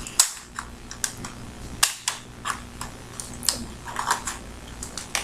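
Irregular sharp clicks and knocks of hard plastic being handled: an airsoft Colt 1911 pistol and its accessories turned over and fiddled with, about a dozen clicks at uneven spacing, the loudest a little under two seconds in.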